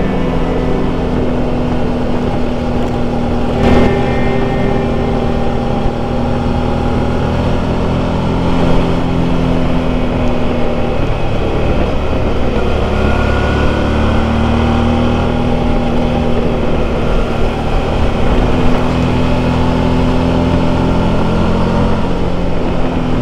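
Motorcycle engine running under way at fairly steady revs, with road and wind noise. The engine note eases off about halfway through, then picks up again, and there is one short knock about four seconds in.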